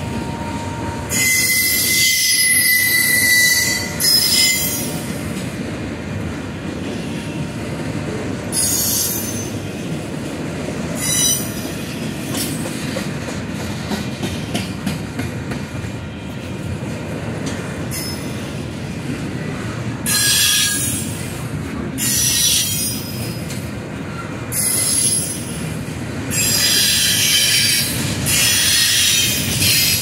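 Union Pacific intermodal and auto rack freight cars rolling past with a steady rumble. Over it, high-pitched wheel squeal comes and goes in repeated bursts, the longest in the first few seconds and near the end.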